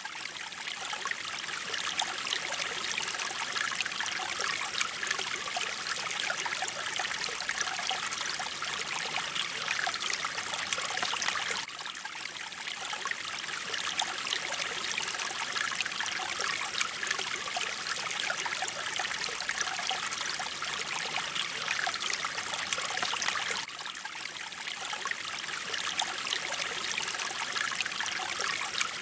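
Flowing mountain water, a steady rush of running water, with a slight dip in level about every twelve seconds.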